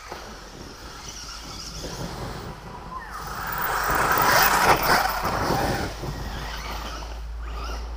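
Radio-controlled off-road truck driving past over dirt, its motor and tyres growing louder to a peak about four to five seconds in, then fading.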